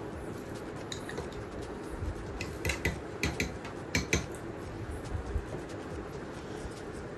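A metal spoon clinking and tapping against a stainless-steel mixer-grinder jar and a small bowl as ingredients are spooned in: a handful of sharp taps, most of them between about two and a half and four seconds in, over a steady low hum.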